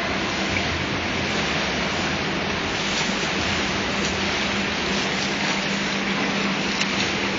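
Steady rushing water noise of an indoor swimming pool, with a swimmer's freestyle splashing close by and a low steady hum.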